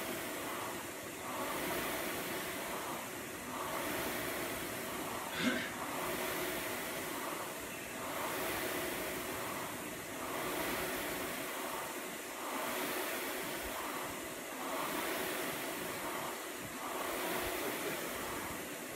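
Air rowing machine's fan flywheel whooshing in a steady rhythm, swelling with each stroke about every two seconds, with one sharp click about five and a half seconds in.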